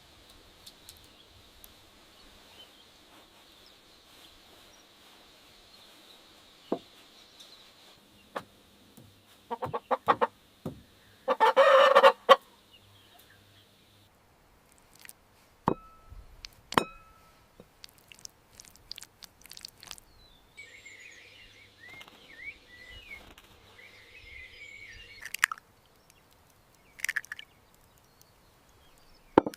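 Chickens calling, with one loud call lasting about a second partway through, among scattered sharp clicks and knocks.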